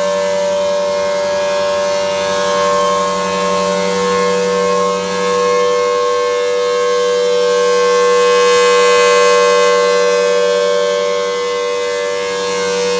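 Federal Signal Thunderbolt 1000T tornado warning siren sounding a steady dual-tone chord during a test, holding its pitch while the loudness swells and fades a little.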